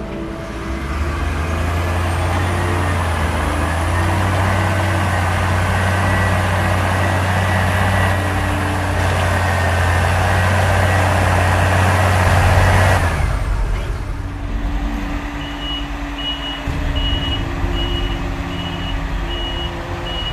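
A large diesel harvest machine running loud and close, with a deep hum and a high whine over a rushing noise, for about twelve seconds before it drops away. A few seconds later a vehicle's reversing alarm starts beeping steadily, about one and a half beeps a second.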